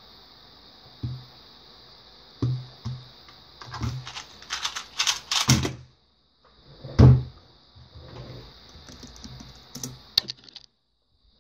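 Plastic MF2S 2x2 speedcube being turned fast: a dense run of clicking layer turns lasting about two seconds that ends in a hard knock, with separate thumps of hands on the speed-timer pads and the cube on the desk mat. A faint steady high whine runs underneath.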